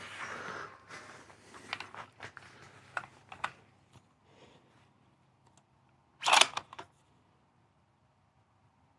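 Soft clicks and rustling as a rifle is handled and settled into position on a shooting barricade, with a brief louder rustle about six seconds in, then near silence.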